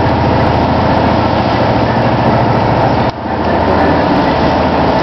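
A boat's engine running steadily under way: a low drone under a loud rushing noise, which drops out briefly about three seconds in.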